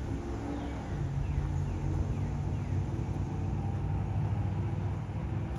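Truck engine running steadily with a low hum, with a few faint short falling bird chirps about a second in.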